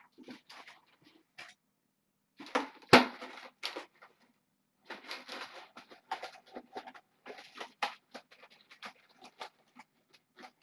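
Irregular rustling and scraping handling noises with scattered clicks and knocks, the loudest a sharp knock about three seconds in.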